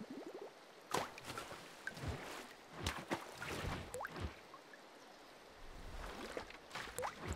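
Splashing and dripping water, a short splash or drip about once a second, with bubbly plops that rise quickly in pitch about four seconds in and again near the end.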